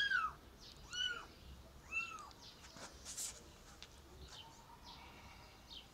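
Kitten mewing three times, about a second apart, each a short high call that rises and falls in pitch.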